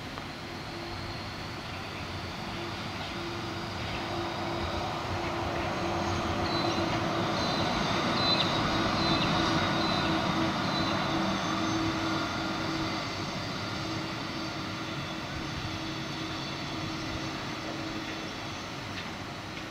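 Bombardier Flexity 2 light-rail tram passing, its running noise swelling to a peak about halfway through and then fading as it moves away. A steady low hum runs through it, with a few short high chirps near the loudest part.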